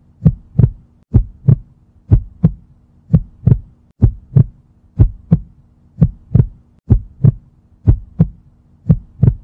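Heartbeat sound effect: a steady lub-dub double thump, about once a second.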